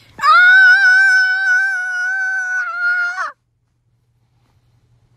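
A cat's single long yowl, held at a nearly steady pitch for about three seconds and cut off abruptly.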